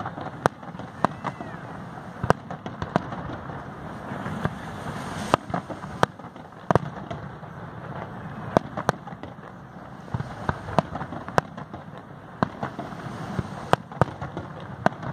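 Aerial fireworks display: many sharp bangs from bursting shells, irregularly spaced, several in quick succession at times, over a steady background noise.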